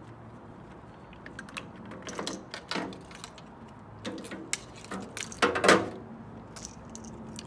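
Plastic and metal clicking and rattling as a microwave's plastic control panel and its circuit board are pulled loose and handled, in two bursts of clatter with the loudest rattle about three-quarters of the way through.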